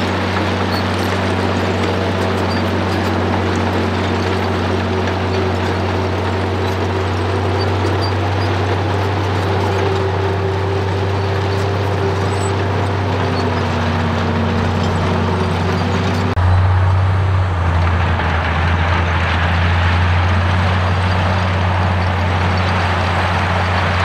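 Komatsu D85E crawler bulldozer's diesel engine running steadily under load while the blade pushes crushed stone, a constant low drone. About two-thirds of the way through, the sound changes abruptly to a louder, rougher drone.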